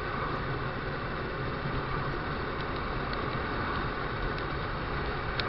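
Honda NX200 motorcycle's single-cylinder engine running steadily while riding, under a constant rush of wind noise on the microphone.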